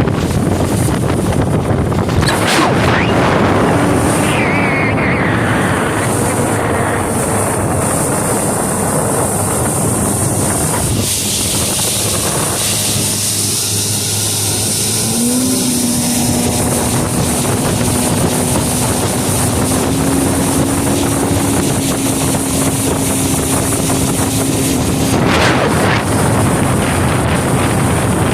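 Yamaha 115 two-stroke outboard motor running under way, its pitch rising and falling with throttle changes, behind heavy wind noise on the microphone. The motor runs strongly after a carburetor rebuild and a new gasket on the fuel pump's pulse line.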